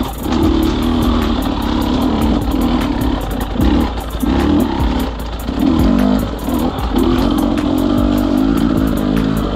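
Dirt bike engine being ridden hard on a rough trail, the throttle opened and closed again and again so the revs rise and fall about once a second.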